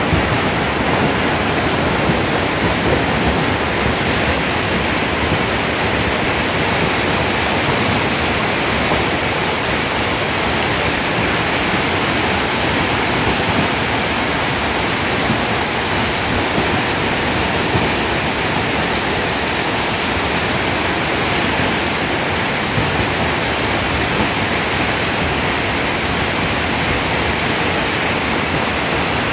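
Hailstorm: a dense, steady roar of hail and rain pelting down, with no let-up.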